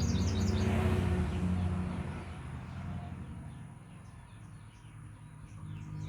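Birds chirping at dawn. A quick run of high chirps comes at the start, and fainter chirping returns in the second half, over a low rumble that fades out after about two seconds.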